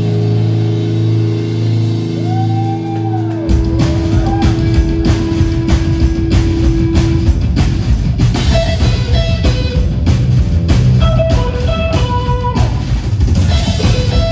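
Live rock band playing: electric guitars and bass hold a sustained note with a couple of bent guitar notes, then the drum kit and full band come in about three and a half seconds in, with a lead guitar melody over the top.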